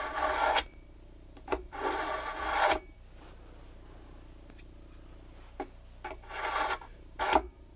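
Knife blade drawn through a pull-through knife sharpener with carbide and ceramic slots: scraping strokes in the first three seconds, a pause, then a couple more strokes near the end. The blade is dull and being ground back to an edge.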